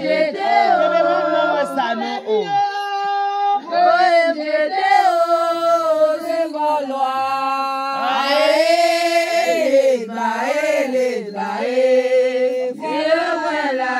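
Voices singing a Haitian Vodou song for the lwa, unaccompanied, with long held notes.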